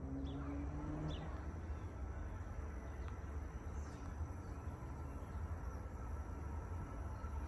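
Outdoor station ambience: a steady low rumble with a few faint, short high chirps now and then. A faint rising hum is heard in the first second.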